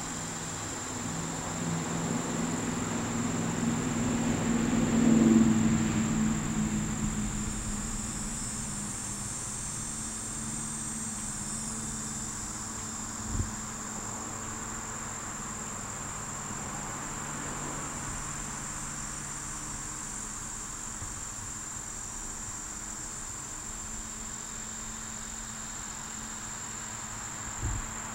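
Steady high-pitched insect chirring in the background. A low hum swells and fades about five seconds in, and there are two soft thumps, one in the middle and one near the end.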